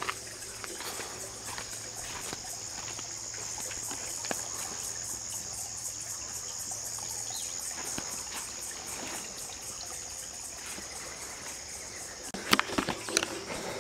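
Insects trilling steadily on a high pitch, with soft footsteps on soil. A few sharp knocks come near the end.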